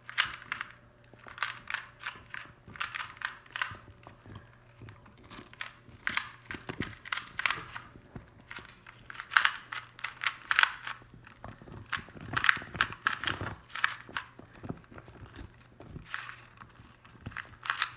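A 2x2 Rubik's cube being twisted quickly by hand, its plastic layers clicking and clacking in rapid irregular runs broken by short pauses.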